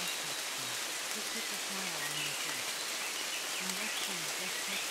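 Steady rain with a quieter low-pitched voice beneath it: the layered spoken affirmations of a subliminal track.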